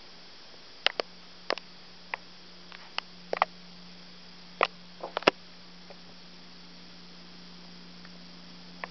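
A steady low hum runs throughout under faint hiss. Scattered sharp clicks and taps come from the camera being handled and adjusted, most of them in the first six seconds.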